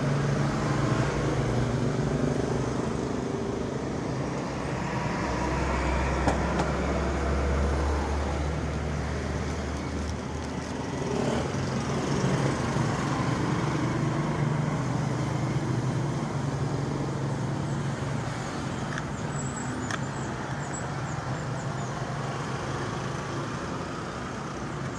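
Steady road traffic and engine noise with a low engine hum, deepening and growing louder for a few seconds about a fifth of the way in.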